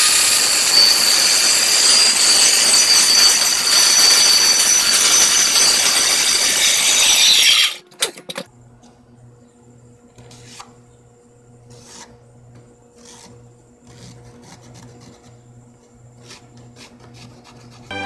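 Handheld circular saw running loud and steady as it cuts through a plywood sheet, then stopping abruptly about seven and a half seconds in. After that there are only faint scattered taps and rubbing.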